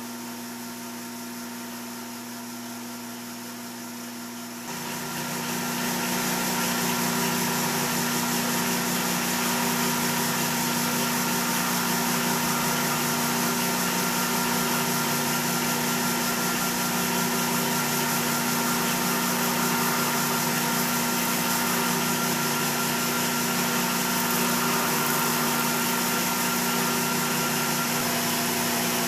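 Metal lathe running under power while a round carbide insert on a boring-head radius cutter turns a ball end on a bar: a steady machine hum with a whine over a hiss. The sound gets louder about five seconds in and stays even.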